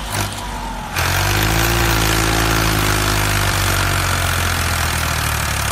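Tractor engine running steadily, louder and steadier from about a second in.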